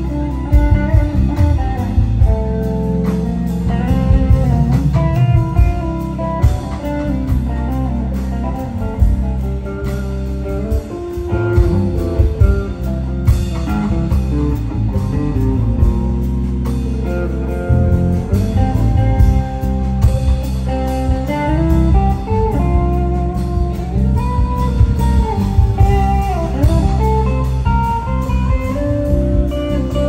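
Live rock band playing an instrumental jam: an electric guitar plays a lead line over drums, bass and keyboard, with pitch-bent notes about three-quarters of the way through.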